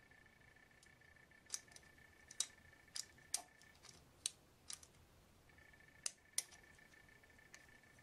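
Faint, sharp, irregular clicks and taps of a plastic washer lid-lock assembly being handled, about a dozen in all. Under them runs a faint steady high-pitched whine that drops out for a couple of seconds midway.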